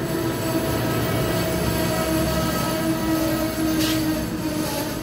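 Amtrak Northeast Regional Amfleet coaches rolling past slowly as the train comes in to stop, a steady rumble with a steady whine over it from the wheels or brakes. A short hiss comes near the end.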